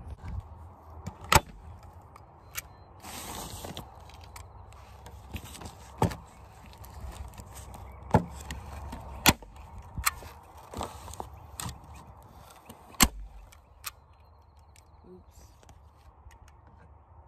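Manual hand-held staple gun firing staples to fasten a plastic tarp, about eight sharp snaps at irregular intervals.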